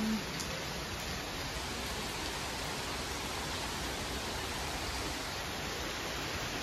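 Steady rain falling on lawns, puddles and paving: an even, unbroken hiss of a downpour.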